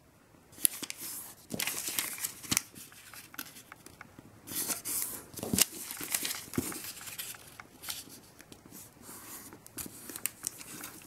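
A square sheet of origami paper rustling and crackling in the hands as its corners are folded in to the centre and the creases pressed flat, with many short, crisp crinkles at irregular intervals.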